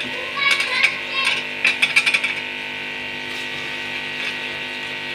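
Raw chicken pieces going into a steel pot of cooked-down tomatoes and oil: a run of clicks and knocks over the first couple of seconds, then only a steady hiss from the pot on the stove.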